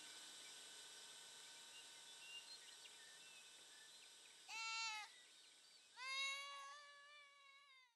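An animal calls twice over faint steady high-pitched background tones: a short call about four and a half seconds in, then a longer, slightly wavering, lower call about six seconds in.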